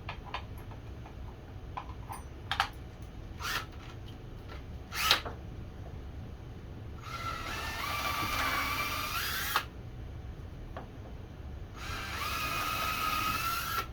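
Power drill with a slightly bigger bit boring out a hole, run twice: a whine of about two and a half seconds, then another of about two seconds. Its pitch wavers as the bit loads up. A few sharp clicks and knocks of handling come before it.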